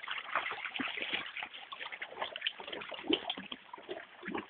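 Shallow creek water splashing and sloshing unevenly as a dog wades and plays in it.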